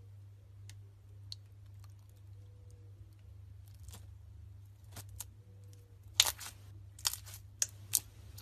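Slime being played with by hand, giving scattered sharp crackles and pops that grow louder and closer together in the last few seconds, over a steady low electrical hum.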